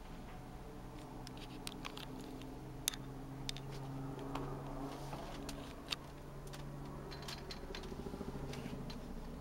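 Steady low drone of a distant helicopter, its pitch drifting slightly, with scattered sharp clicks close to the microphone.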